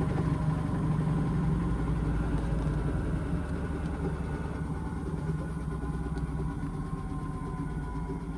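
Indesit washing machine's drum slowing after an intermediate spin: the steady motor hum fades gradually while a thin whine slides slowly down in pitch as the drum winds down.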